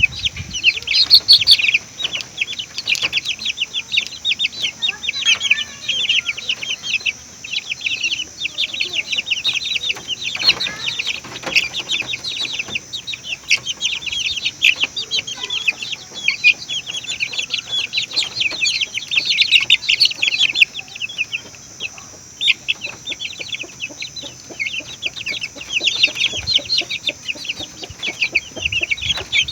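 A flock of lovebirds chattering: many rapid, shrill chirps overlapping without a break.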